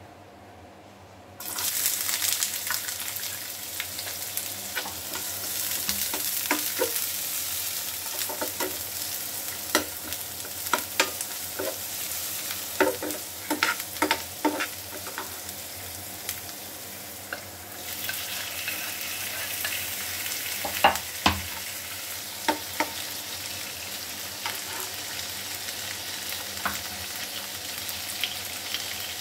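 Chopped onions hit hot oil in a frying pan and sizzle at once about a second in, with a steel spoon clicking and scraping against the pan as they are stirred. A little past halfway the sizzle dips, then picks up again as sliced tomatoes go in, with more stirring clicks.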